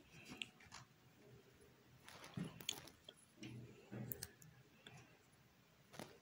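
Faint scratching and clicking of a pencil writing on a workbook page.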